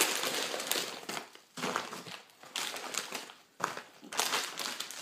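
Crinkling of a Doritos bag in several bursts as it is handled and tipped to pour chips onto a paper plate.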